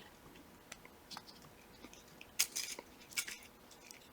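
Faint, scattered clicks and scrapes of a small tool working against the plastic and metal parts of a Shimano 105 road bike shifter, pushing at a plastic piece from the other side to free it. The louder clicks come in two short clusters, about two and a half and three seconds in.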